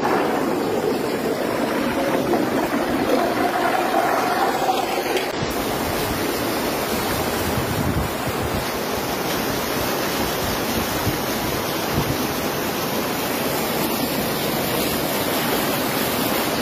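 Muddy flash-flood water rushing past in a steady, loud flow, from runoff after torrential rain.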